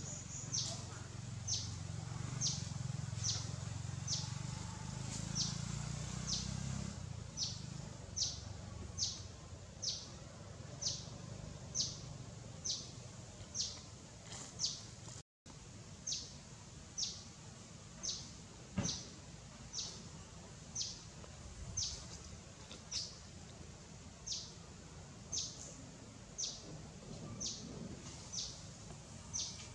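A bird's short, high chirp repeated steadily, about three chirps every two seconds, over faint outdoor background noise. The sound drops out briefly about halfway through.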